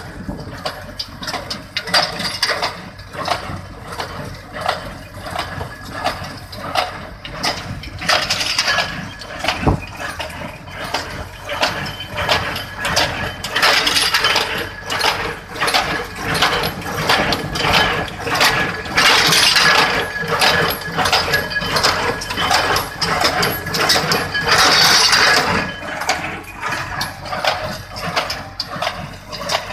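New Holland small square baler baling rice straw, its plunger and pickup clattering in a steady, even rhythm over the towing tractor's running engine.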